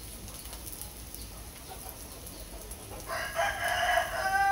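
A rooster crowing once, a single held call of about a second and a half near the end, over faint steady background.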